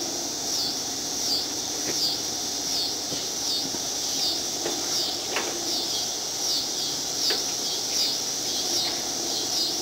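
A few light knocks and clicks as the lawn tractor's dash and steering column are handled and fitted, over a high chirp repeating about every two-thirds of a second.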